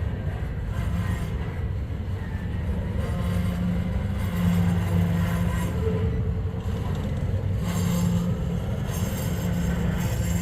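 Freight train rolling past: a steady low rumble with a held hum, and bursts of higher rail noise near the end.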